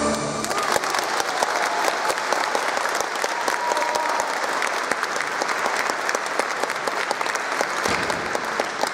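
Audience applause breaks out just as the music stops, then continues as steady clapping.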